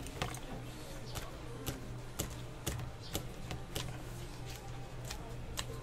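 Gloved hands patting and pressing guokui dough flat on a silicone mat, making light, irregular taps about twice a second over a steady low hum.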